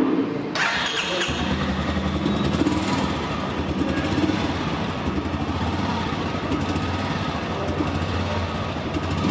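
Royal Enfield Classic 350's single-cylinder engine started on the electric starter: a brief whirr of cranking, then the engine catches about a second in and settles into a steady idle with its low exhaust thump.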